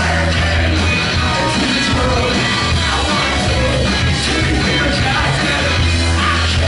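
Live rock band playing loud: a male singer yelling and singing over electric guitar, bass guitar and drums, with a heavy bass line.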